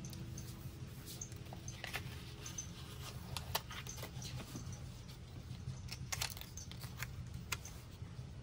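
Scattered light clicks, taps and short rustles of sticker sheets and paper being handled, over a steady low hum.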